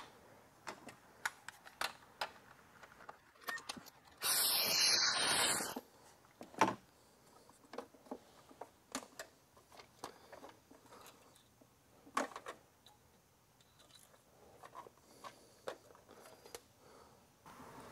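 Hand tools and metal engine parts clicking and knocking as a cover is taken off a golf cart's Robin 350cc engine. A loud, harsh noise starts about four seconds in and lasts about a second and a half.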